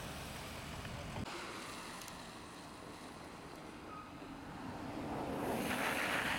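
Outdoor street noise from passing traffic, with wind on the microphone. The noise swells about five seconds in.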